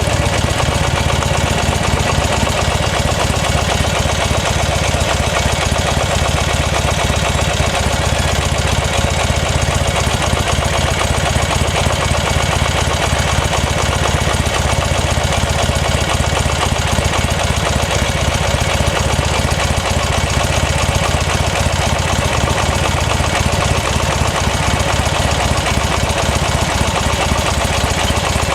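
Buell XB9S Lightning's air-cooled V-twin engine running steadily with a fast, even pulse and no change in revs.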